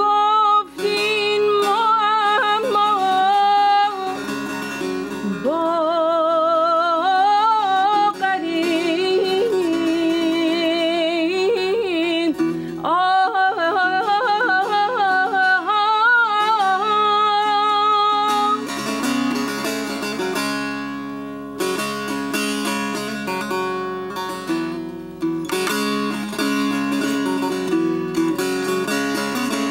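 Persian classical singing: a solo voice in long, ornamented melismatic runs with wavering pitch over a plucked string accompaniment. About two-thirds of the way through the voice stops and the plucked strings carry on alone with fast repeated strokes.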